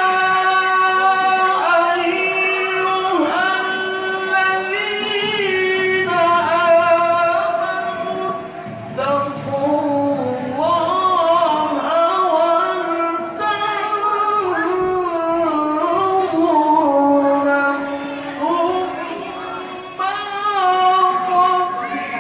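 A male qori's melodic Quran recitation (tilawah) sung into a microphone: one high, ornamented solo voice holding long notes and winding through melismatic turns, moving to a lower register in the middle.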